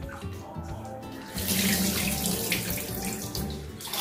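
Tap water running and splashing into a glass bowl of toor dal and spilling over into a stainless-steel sink as the lentils are rinsed, growing louder about a second and a half in. Soft background music plays underneath.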